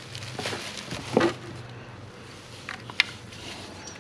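Bubble wrap and plastic packaging crinkling as it is pulled off a motor controller, with a soft knock about a second in and a few light clicks later, the sharpest near the end.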